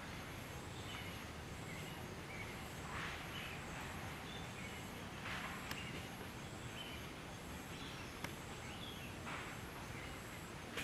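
Outdoor forest ambience: a steady background hiss under a faint, high, evenly pulsing insect buzz, with scattered short bird chirps and three brief rasping calls.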